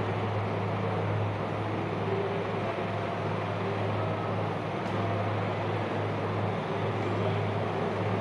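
Steady, even background noise with a constant low hum, unchanging throughout and with no speech.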